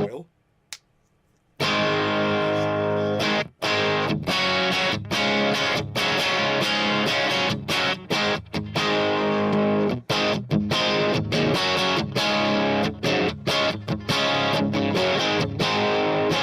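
Brian Eastwood custom 'BillyBird' electric guitar with Mojo Goldfoil humbuckers, tuned down a half step to E flat and played through a Kemper amp profile. After about a second and a half of silence it plays chords in short rhythmic phrases broken by brief stops.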